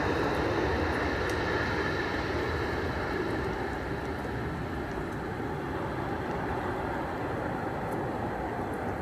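Jet engine noise of a Boeing 737-800 on its landing roll-out, a steady rush of sound that fades gradually as the airliner rolls away down the runway.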